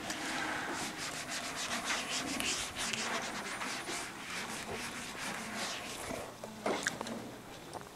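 Whiteboard eraser rubbing across a dry-erase board in quick repeated strokes.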